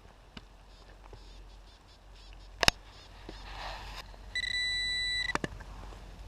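A sharp click, a brief rustle, then a metal detector's steady electronic beep held about a second, signalling a metal target in the ground, a nickel among tree roots.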